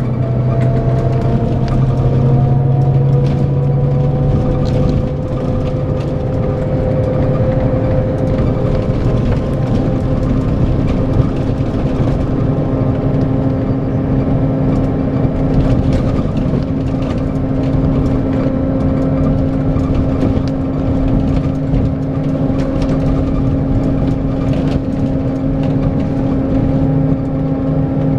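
Scania K410EB6 coach's 13-litre straight-six diesel running at a steady cruise, with steady whining tones over the engine and road noise.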